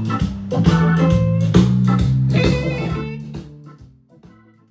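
Guitar-led band music with bass and a steady beat, fading out over the last second or so.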